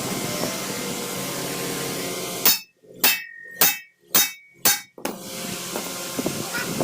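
Five hammer blows on metal in quick succession, about two a second, over steady workshop noise.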